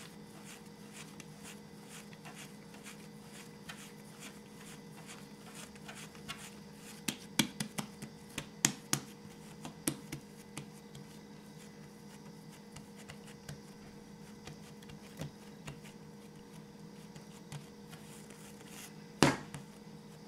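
Hands pressing and flattening soft yeast dough on a wooden table: quiet handling noise with scattered soft taps and knocks, a cluster of them about seven to ten seconds in and one sharper knock near the end, over a steady low hum.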